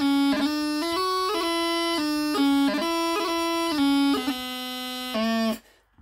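Highland bagpipe practice chanter playing a pipe march at slow practice tempo: held melody notes cut by quick grace notes. It breaks off briefly near the end, then the tune goes on.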